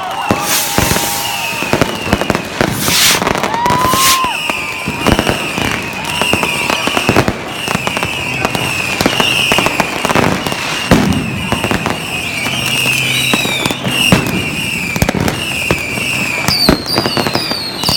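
Fireworks going off in a continuous barrage of bangs and crackles, with a rising rocket whistle about four seconds in. A high chirping tone repeats about twice a second through much of it.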